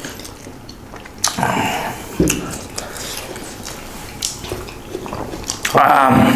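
Men eating rice and pork curry by hand and gulping water, with chewing and wet eating noises throughout and a short, louder throaty vocal sound near the end.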